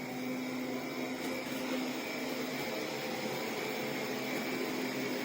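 Vexilar W11 robot vacuum cleaner running: a steady whirring hum with a faint held whine.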